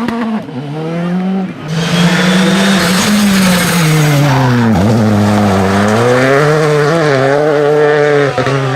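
Rally car engine running hard. Its pitch sags around the middle as the car slows, then climbs again as it pulls away, with a hiss of tyre noise from about two seconds in.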